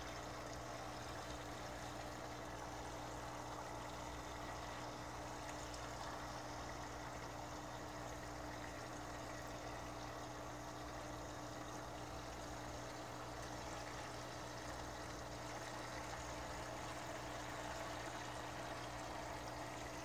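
Aquarium water running steadily from a siphon hose into a Fluval FX6 canister filter, filling the canister to prime it, over a faint steady low hum.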